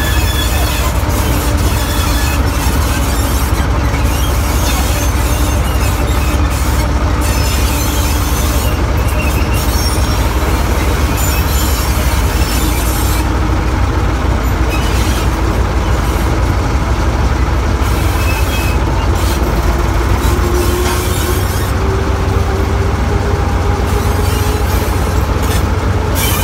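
Small diesel shunting locomotive running under way, its engine a loud, steady low rumble, the note rising in pitch in the second half.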